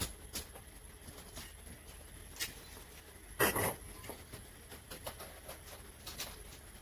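Scattered small clicks and knocks of monitor parts and tools being handled on a workbench, with one louder, brief clatter about three and a half seconds in.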